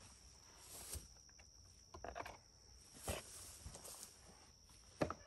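Faint handling sounds of a chainsaw being lifted off a stump vise and carried away: a few scattered light knocks and clicks with footsteps through grass, the sharpest click near the end.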